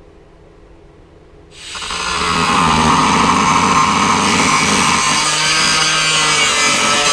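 Angle grinder starting about a second and a half in, spinning up within a second, then cutting steadily through the rusted steel bar at the rear of a 1970 VW bay-window bus, throwing sparks.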